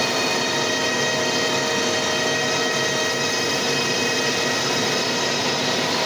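Machine tool running steadily while machining a metal flange: an even mechanical noise with many fixed whining tones that does not change.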